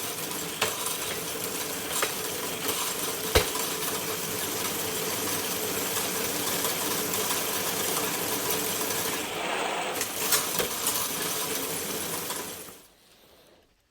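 A steady machine hum with scattered metallic clinks and knocks, one sharp knock a few seconds in; it stops abruptly about a second before the end.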